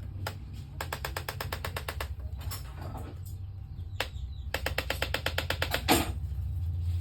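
Two rapid runs of mechanical ratchet-like clicking, about a dozen clicks a second, each lasting over a second, with a few single clicks between them and a sharper click at the end of the second run.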